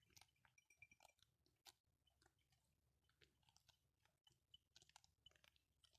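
Sheep chewing feed, faint irregular crunches.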